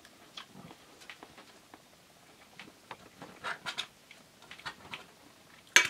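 A fork tapping and scraping on a plate while cutting into an omelet: a scatter of light clicks and taps, with a sharper click near the end.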